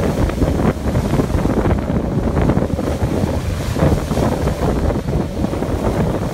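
Strong wind buffeting the microphone over waves breaking and washing up on the shore.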